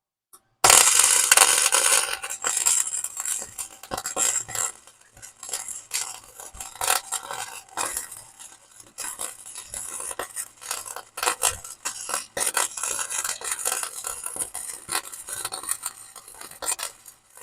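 Welding arc crackling and popping as a bead is laid in small circles on a motor mount bracket. It starts sharply about a second in and runs on with brief breaks between passes.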